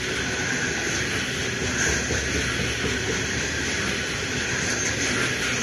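Coal hopper wagons of a freight train rolling past, a steady, even noise of steel wheels running on the rails.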